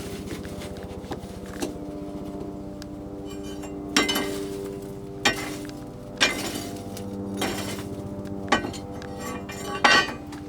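Blacksmith's hammer striking hot steel on an anvil while forging a shovel: a couple of light taps, then about six heavier blows from about four seconds in, roughly a second apart, each leaving the anvil ringing.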